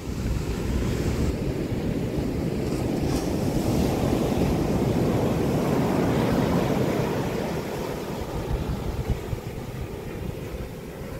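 Ocean surf breaking and washing up a sandy beach: a steady rushing that swells through the middle and eases a little near the end.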